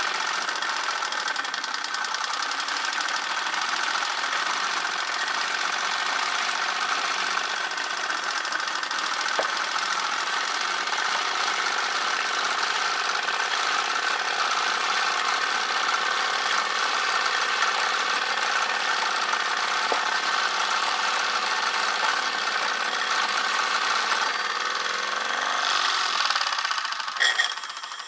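Gas-fired Mercer type 2 model steam traction engine running steadily on the bench, a fast even mechanical clatter. Near the end the running falters and drops away.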